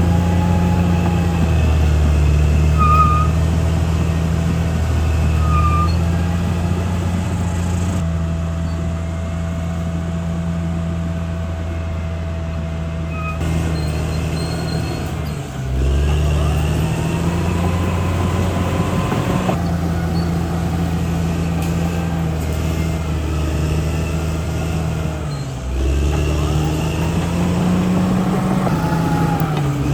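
Diesel engine of a Caterpillar D6R XL bulldozer running steadily. Its pitch dips briefly and climbs back twice, about halfway through and again near the end.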